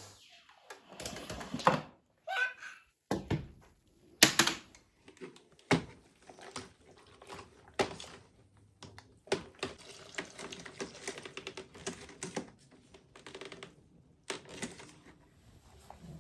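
Irregular light knocks, clicks and taps of objects being handled and set down indoors, with a couple of louder knocks near two and four seconds in.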